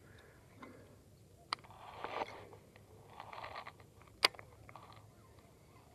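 Baitcasting reel worked during a cast: a small click, a short whirr, a second whirr, then a loud sharp click a little past four seconds in.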